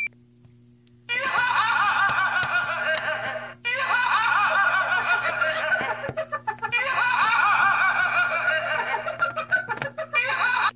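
High-pitched laughter in three stretches, each starting and stopping abruptly, after a quiet first second, over a steady low hum.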